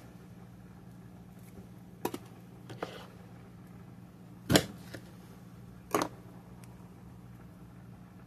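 Kitchen knife cutting through a lemon, with several short sharp knocks as the blade and lemon strike the board; the loudest comes about halfway through. A steady low hum sits underneath.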